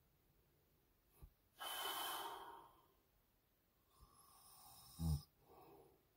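A man asleep breathing heavily, picked up by a phone microphone: a long noisy breath about two seconds in, then another breath that ends in a short, low snore about five seconds in, followed by a softer breath.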